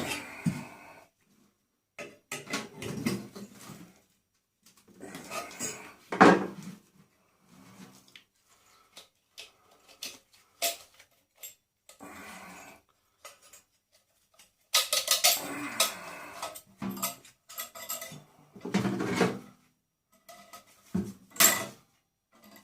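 Metal parts from a stripped-down microwave oven being handled and tossed, clattering and clinking in irregular bursts with short quiet gaps between.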